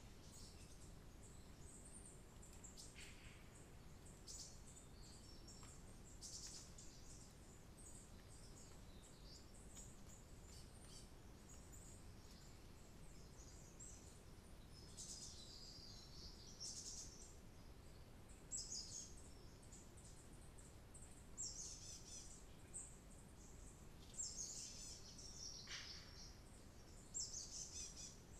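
Small birds chirping faintly on and off, in clusters of short, high chirps that come more often in the second half, over a low steady background hiss.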